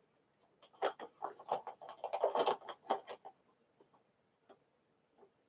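Small cosmetic packages and samples clicking and rattling as they are rummaged through in a box. A dense flurry of clicks starts about a second in and lasts a couple of seconds, followed by a few scattered ticks.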